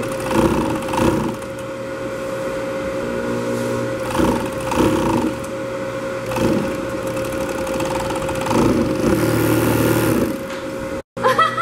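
Brother industrial overlock (serger) machine with its motor humming steadily, broken by several short runs of stitching as a rib-knit band is sewn onto a knit T-shirt.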